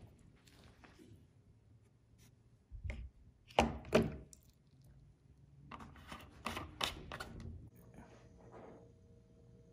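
Metal bottle opener dropped into a plastic cup of rust-remover liquid: a few sharp knocks and a splash about three and a half seconds in, then a quicker run of clinks and knocks from about six to seven and a half seconds as the cup and opener are handled.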